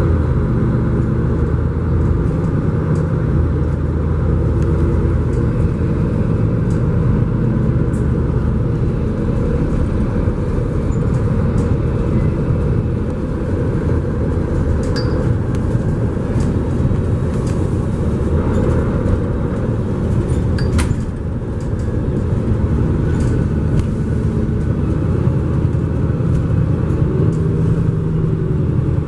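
Mercedes-Benz Conecto G articulated city bus under way, heard from inside the cabin: a steady engine drone and road rumble whose pitch shifts as the bus changes speed, dipping briefly about two-thirds of the way through.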